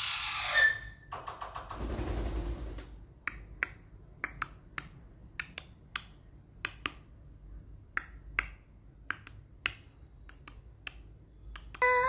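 A short rustle, then a run of sharp, irregular clicks, two or three a second.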